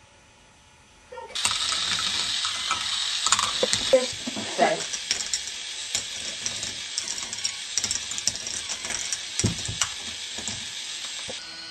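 K'nex ball machine running: plastic balls clattering through its plastic track and mechanisms, a stream of sharp clicks and rattles over a steady hiss, starting suddenly about a second in.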